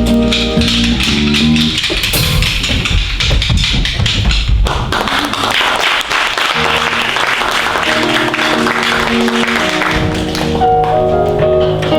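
Stage show music with steady sustained notes, broken in the middle by several seconds of dense, rapid tapping or clapping noise that nearly covers the music before the tune returns near the end.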